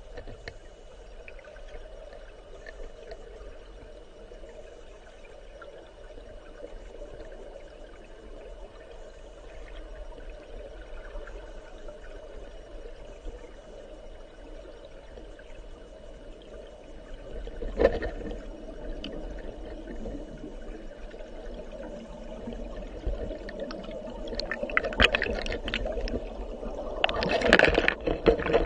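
River current heard through an underwater camera: a steady, muffled rush of flowing water. About two-thirds of the way in there is a sharp knock, and near the end a cluster of knocks and clatter.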